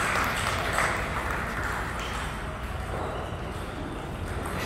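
Table tennis ball clicking off paddles and the table: scattered sharp hits, the clearest about a second in, over steady background noise.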